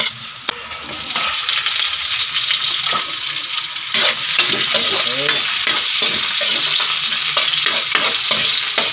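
Chopped garlic and red onions sizzling in hot oil in a metal wok, stirred and scraped with a metal ladle-spatula. The frying gets louder about a second in and again around four seconds, as the onions join the garlic in the oil.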